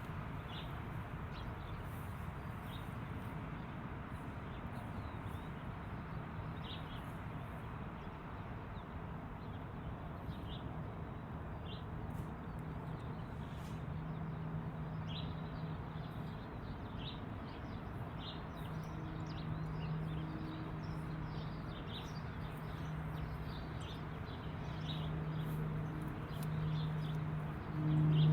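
Outdoor farm ambience: birds chirping now and then over a steady background rush, with a low engine hum that fades in and out and grows louder near the end.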